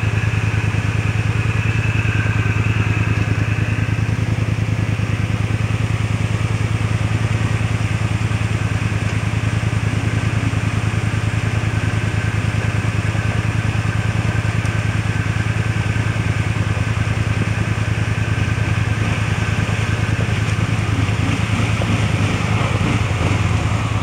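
Kawasaki KVF360 Prairie ATV's single-cylinder four-stroke engine running steadily at an even pitch, close up, with no revving.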